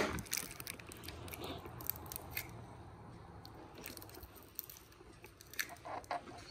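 Someone chewing and crunching a foil-wrapped candy close to the microphone, with scattered short crackles.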